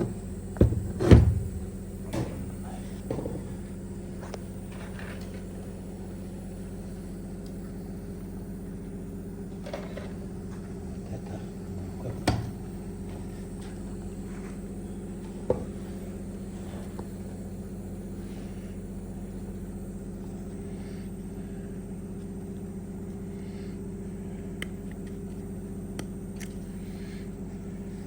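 A few sharp knocks and clinks of tools and parts being handled while a truck steering column is worked on, the loudest about a second in and single ones later, over a steady hum.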